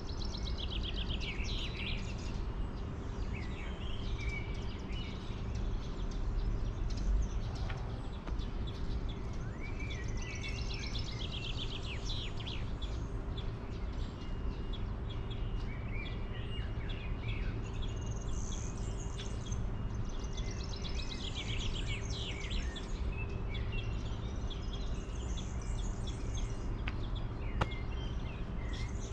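Songbirds singing short, high phrases every few seconds over a steady background rumble and a faint low hum. A single sharp click comes near the end.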